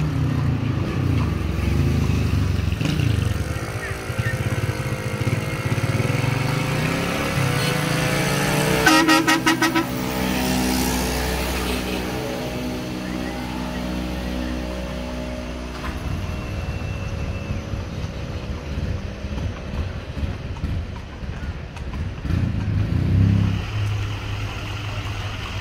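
Motor vehicle engines running, one rising in pitch a few seconds in and then holding steady. About nine seconds in, a horn honks in a quick run of short toots, the loudest moment.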